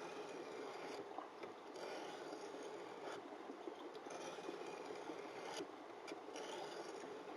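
Santoku knife edge scraping along a lightly wetted diamond sharpening stone in a guided angle jig, in a few slow, faint strokes.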